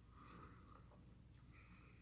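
Near silence, with faint mouth and breathing sounds of someone eating, including a soft sound about half a second in.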